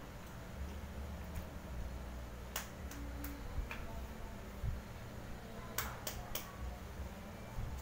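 Close-up eating sounds of a person chewing grilled skewered meat: sharp wet mouth clicks and smacks, three together about two and a half seconds in and three more about six seconds in, over a low steady hum.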